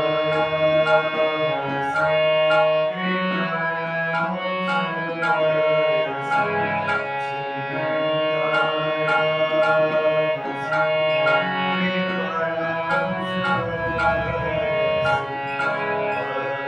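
Harmonium playing a melody on sustained reedy chords over a steady tabla-style rhythm, about two beats a second.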